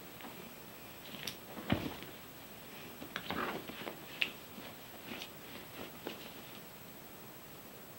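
Bed sheet rustling and scuffling as a Sphynx cat wrestles and kicks at a person's hand, with irregular soft thumps and scrapes, the loudest a thump about two seconds in. It dies down near the end.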